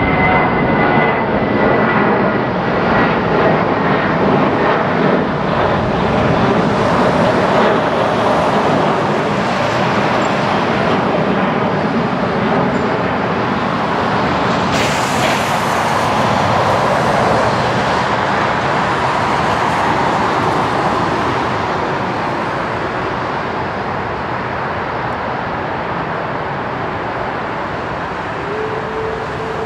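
Emirates Airbus A380-800's four jet engines at taxi power as the aircraft rolls slowly past: a steady, loud rumble and whine that eases off a little over the last few seconds.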